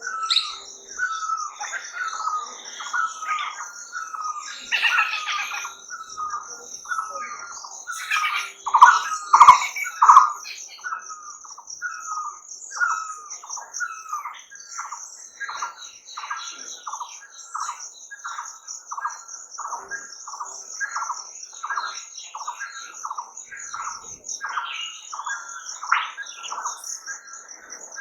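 Birds calling in the open: one bird repeats a short note about three times every two seconds, and a louder flurry of mixed chirps comes about a third of the way in. Under it runs a steady, high, pulsing insect trill.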